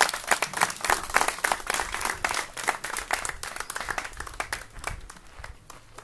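Audience applauding, the claps thinning out and fading away near the end.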